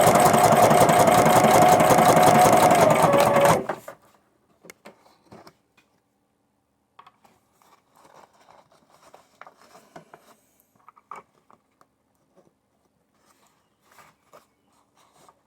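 Sewing machine with a walking foot stitching through heavy material with heavy thread: a steady motor whine with fast, even needle strokes that stops abruptly about three and a half seconds in, which the sewer takes for the machine struggling. After that, only faint clicks and rustles.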